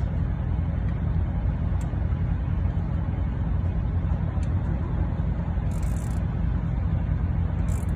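Caterpillar 3406B inline-six diesel engine running steadily at an even speed, with no revving.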